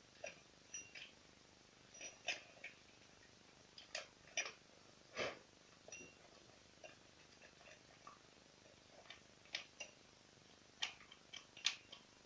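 Short, irregular scratches and clicks of a small brush and hands cleaning a Ruris 367 chainsaw. The longest brushing stroke comes about halfway through.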